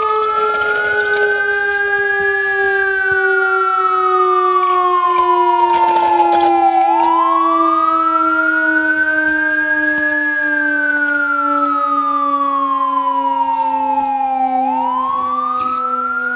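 Electronic wailing siren of a toy fire truck, sliding slowly up and then down in pitch about every eight seconds. Beneath it runs a steady lower tone that slowly sinks in pitch, with a few faint clicks.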